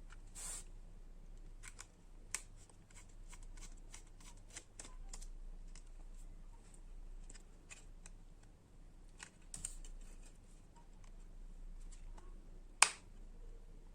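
Light, irregular clicks and rustles of small objects being handled, with one sharp, loud click about a second before the end.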